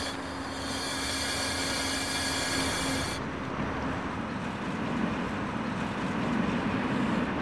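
Electric suburban trains at a station giving off a steady high whine over a low hum, which stops suddenly about three seconds in. Then city street noise follows, swelling as a tram passes.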